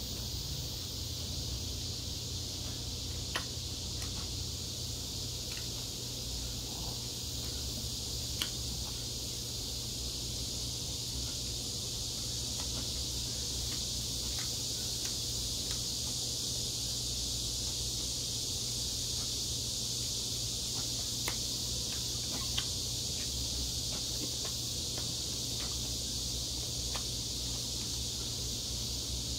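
A steady high-pitched hiss over a low hum, with a few faint clicks and crackles of cooked shrimp shells being peeled apart by hand.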